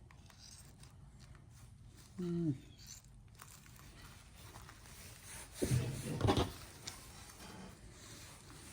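A man's brief wordless hum with a falling pitch about two seconds in, then a short low mutter around six seconds, over faint handling noise.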